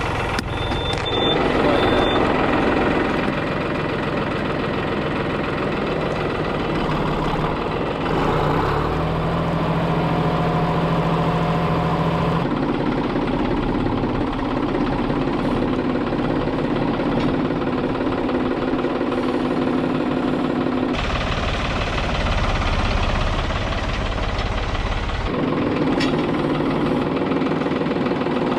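Farm tractor engine running steadily at a fairly even speed, its note changing abruptly several times. Two short high beeps sound about a second and two seconds in.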